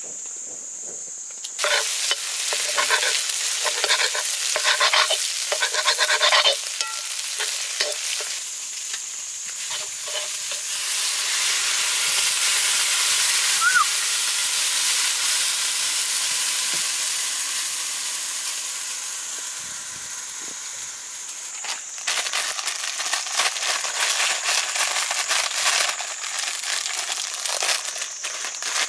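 Food sizzling as it fries in a hot pan, with a utensil stirring and scraping against the pan in quick repeated strokes. The stirring comes in two spells, with a steady swelling sizzle between them.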